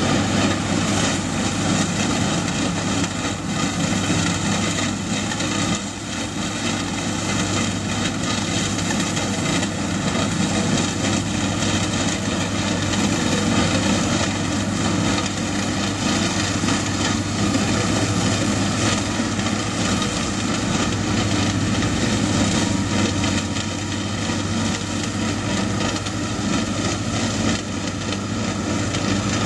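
Steady drone of diesel farm-machinery engines, a front-loader tractor among them, running without a break.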